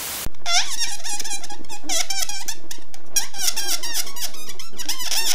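A brief burst of static hiss, then an inflated rubber balloon squealing as air is let out through its stretched neck: a quick, unbroken run of rising and falling squeaks.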